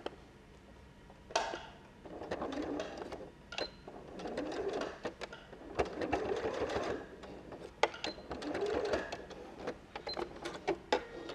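Electric domestic sewing machine stitching in about four short runs with brief pauses and clicks between them, sewing a short line of tacking stitches to hold a folded fabric bow in place.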